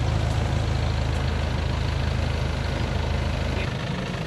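Engine of a Ruilong New World 88 combine harvester running with a steady low hum. Near the end, its note changes and the deepest part of the hum fades.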